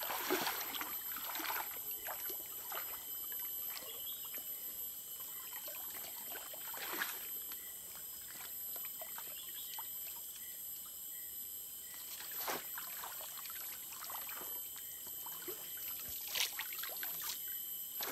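Shallow stream water trickling and splashing as a hand scoop net is dipped, dragged and lifted through it, with a few louder splashes spread several seconds apart.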